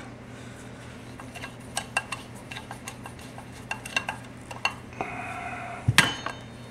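Light metallic clicks and clinks as pool pump motor parts and hand tools are handled, with a brief grating sound about five seconds in, then one sharp clank, over a low steady hum.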